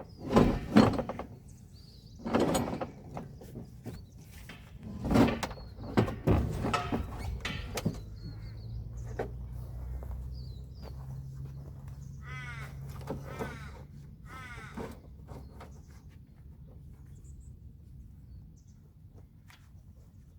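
Several loud clunks and knocks as metal parts are handled and pulled while the car's LPG gas line and filler neck are removed, followed by a low hum. About two-thirds of the way in, a bird calls three times.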